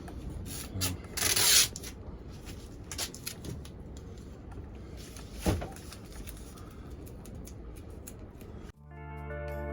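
Masking tape pulled off its roll with a short rasp about a second in, among rustling and light knocks of hands working; a sharper knock comes about five and a half seconds in. Music starts near the end.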